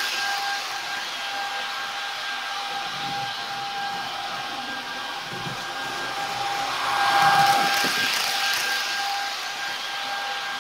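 Sound decoder of an H0 model Taurus (ÖBB 1116) electric locomotive playing its standing sounds through the model's small speaker: steady blower-like fan noise with a high tone that drops in and out, and a hiss that swells about seven seconds in.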